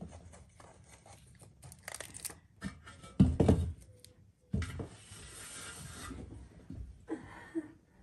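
Potatoes being picked out of a pan and dropped into an aluminium basin: scattered knocks and clunks, with a loud thud about three seconds in and another a second later, then a stretch of rustling.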